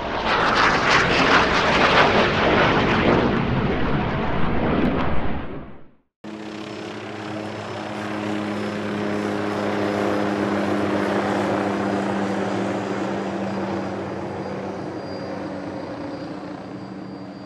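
About six seconds of loud rushing aircraft noise that cuts off abruptly, followed by an AH-64 Apache helicopter in flight: a steady rotor and engine drone with a thin high whine from its twin turboshaft engines, swelling and then slowly fading toward the end.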